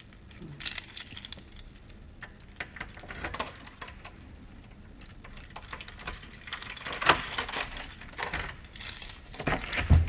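A large bunch of metal keys jangling and clinking as a key is worked into a door lock, the jingling loudest about seven seconds in, with a dull knock right at the end.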